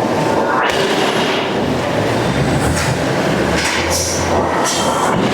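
Loud, continuous metallic clatter and rumble of iron-working machinery, with a few short hissy bursts.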